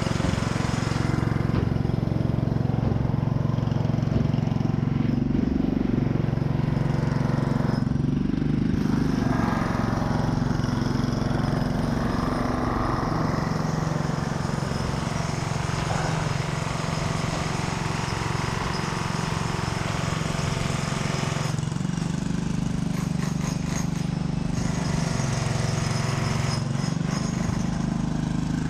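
A motor engine droning steadily, its pitch shifting up and down a few times.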